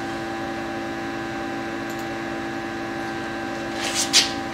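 Steady electrical and mechanical hum from a CNC router set-up at rest, holding a few fixed tones. A brief clatter comes near the end.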